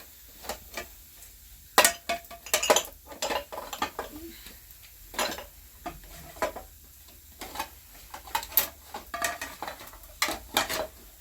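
Dishes and utensils clinking and knocking irregularly, some strikes leaving a brief ringing tone.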